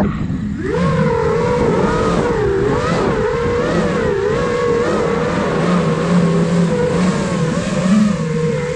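Five-inch FPV quadcopter's brushless motors and propellers whining, the pitch rising and falling constantly with the throttle. The whine drops away at the start and climbs back about a second in.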